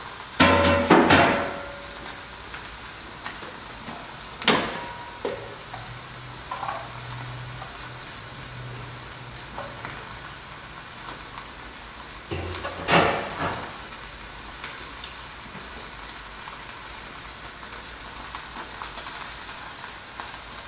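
Steady sizzle of chicken breast cooking in a closed combination grill and panini press, with several loud clatters of dishes and food processor parts being handled, the biggest near the start and about two-thirds of the way through.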